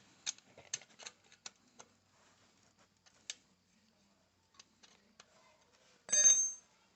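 Scattered sharp metallic clicks of a wrench working a bolt loose on a motorcycle engine, a few a second and irregular at first, then sparser. About six seconds in comes a louder, brief ringing metal clink.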